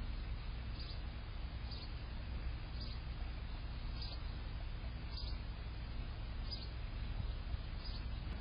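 A bird giving seven short, high chip calls, about one a second, over a steady low background rumble.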